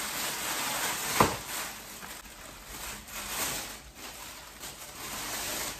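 Thin plastic bag rustling and crinkling as heads of bok choy are pulled out of it, with one sharp knock about a second in.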